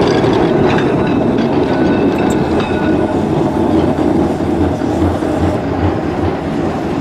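Double-decker Blackpool tram running along the street tracks, a steady rumble of wheels on rail with a few faint high squeals early on, easing off slightly as it draws away.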